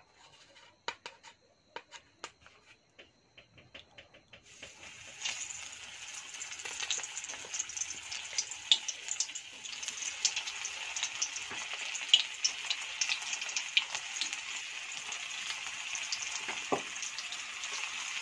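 Cutlets frying in hot oil in a steel kadai. A few faint ticks, then about four and a half seconds in a steady sizzle with crackles starts suddenly as the cutlets go in, and it builds as more are added.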